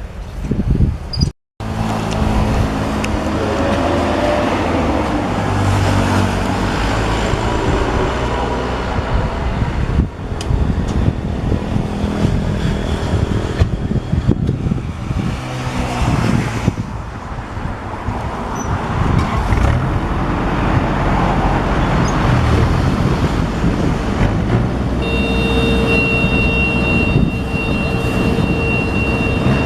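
Yanmar AW82V combine harvester running steadily, its diesel engine droning under the rush of its working machinery. The sound drops out completely for a moment about a second and a half in, and a steady high electronic tone joins in near the end.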